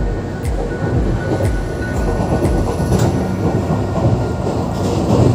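Passenger train running along the track, heard from inside an AC coach: a steady low rumble of the wheels with light ticks about once a second.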